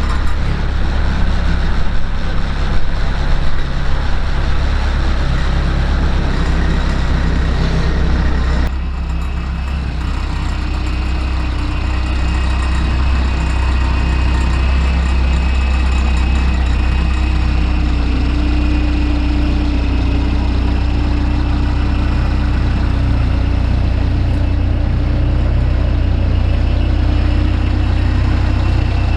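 Bobcat skid steer loader's engine running steadily with a deep hum. About nine seconds in it drops a little in level and runs on steady and slightly quieter.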